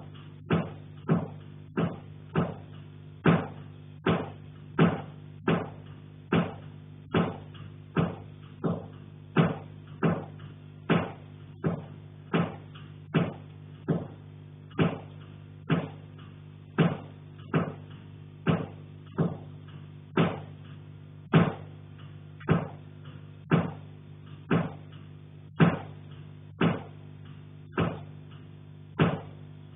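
Repeated hard knocking from the attic above the ceiling, about three knocks every two seconds at an uneven pace, each sharp with a short ring-out, over a steady low hum.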